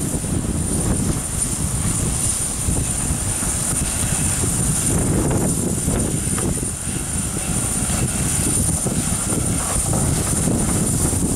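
GWR 4200-class steam tank locomotive moving its train of coaches slowly along the track: a steady rumble of the engine and the rolling carriages, with no distinct exhaust beats.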